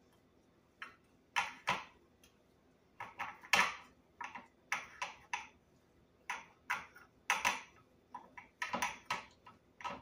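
Irregular light clicks and taps of a metal muffin tin knocking on a cutting board and against fingers as pizza dough is pressed into its cups by hand.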